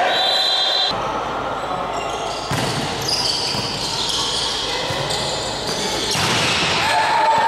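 Volleyball rally in a sports hall: echoing court noise of ball contacts and players' movement, with voices calling out and short high squeals here and there.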